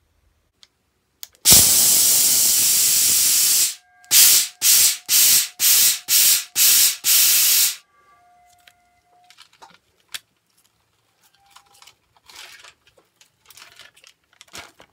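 Homemade glue web shooter spraying: one long hiss of about two seconds, then seven short hissing bursts at about two a second. Faint clicks and crinkling follow.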